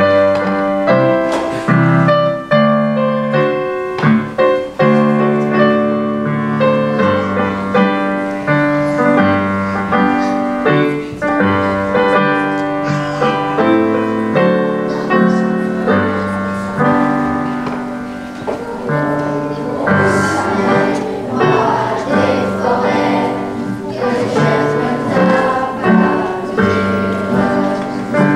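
A large ensemble of nylon-string classical guitars playing a tune with piano accompaniment. The playing gets busier, with strummed chords, from about twenty seconds in.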